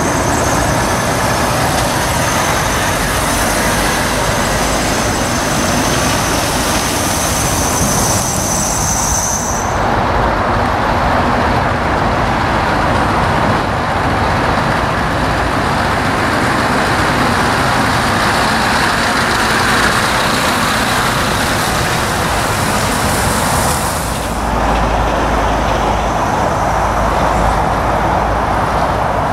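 Heavy lorries (Volvo FH and Scania tractor units) running and driving slowly past at close range, a steady diesel engine and road noise. A thin high whistle sounds over the first third, and the sound changes abruptly twice.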